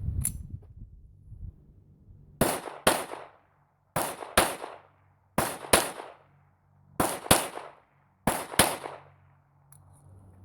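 Smith & Wesson Victory .22 LR pistol fired in five quick double taps, ten sharp shots in all, each pair about half a second apart and the pairs about a second and a half apart.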